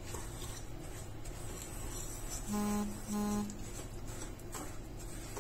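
Wire whisk stirring curd into semolina in a glass bowl, faint and soft. A little past halfway, two short steady low-pitched tones sound one right after the other, like a buzzer or beep from an unseen device.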